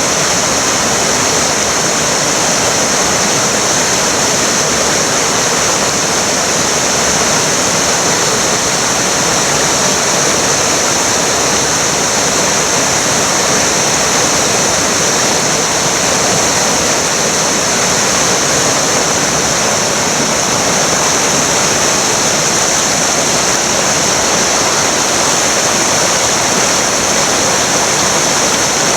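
The Río Cuadros rushing: a steady, loud, unbroken roar of fast-flowing river water.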